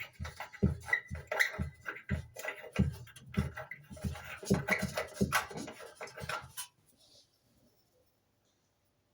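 Oven lamp bulb being unscrewed from its socket: a run of irregular scraping clicks as the screw base turns in the threads, with a brief squeak early on. It stops about seven seconds in, followed by silence.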